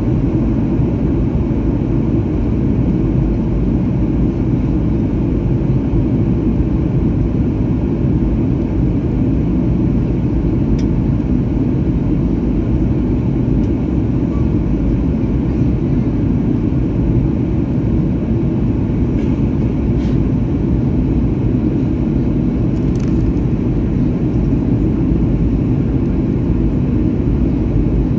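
Steady cabin noise of an airliner descending on approach: engine and rushing-air noise heard inside the cabin, deep and even throughout, with a few faint clicks.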